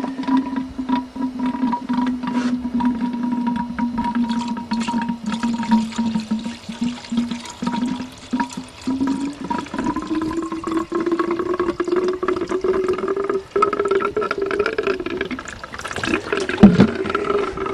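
Water being poured into a car radiator, gurgling and glugging steadily, with a hollow tone that climbs in pitch through the second half as the radiator fills.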